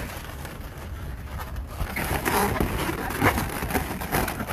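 Latex balloons rubbing and creaking against each other as a twisted red balloon is pulled tight around a balloon sculpture, with a few sharper scrapes between about two and four seconds in, over a steady low rumble.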